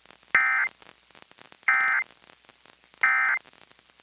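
Emergency Alert System end-of-message (EOM) data bursts: three short identical bursts of digital two-tone modem chirping, each about a third of a second and about 1.3 s apart, the coded signal that closes the alert. Received over an FM radio broadcast.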